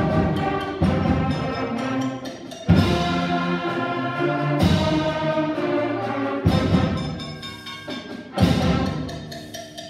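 Sixth-grade concert band playing: sustained brass and woodwind chords struck by heavy accented hits with percussion, five of them about two seconds apart, each decaying before the next.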